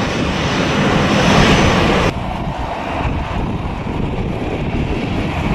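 Aircraft engine noise, a loud rushing roar. About two seconds in, it cuts abruptly to a quieter, lower rumble.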